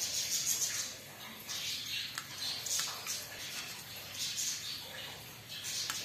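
Plum-headed parakeet bathing in a shallow steel plate of water, splashing and fluttering its wet wings in short bursts about once a second.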